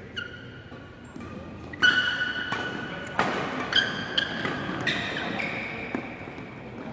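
Badminton rally: rackets strike the shuttlecock with a string of sharp cracks, under high steady squeaks of court shoes on the floor. The hits come quicker from about two seconds in, then stop near the end.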